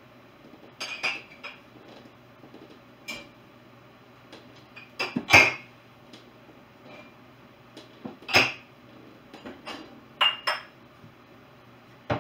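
Dishes clinking and knocking as clean dishes are lifted out of a dishwasher and set into cupboards. The strikes are scattered and sharp, and the loudest come about five seconds in and about eight seconds in.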